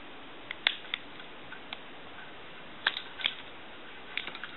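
Light plastic clicks and taps as a telephone keypad's rubber key membrane is pressed into its black plastic bezel by hand, a few at a time at irregular intervals.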